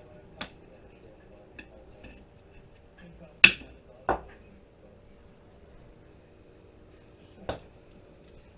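A few sharp metallic clinks from small metal scrap parts being handled and dropped. The two loudest come close together past the middle, with a lighter one early and another near the end.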